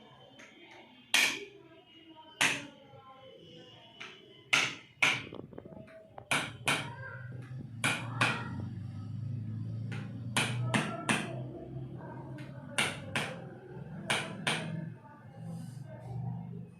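A series of about fifteen sharp, irregularly spaced knocks, with a low steady hum under the second half.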